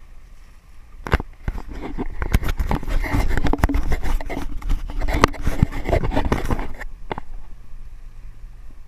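Handling noise from a GoPro camera being gripped and repositioned on its mount: a dense run of scrapes, rubs and clicks from fingers on the camera body. It starts about a second in and stops near seven seconds.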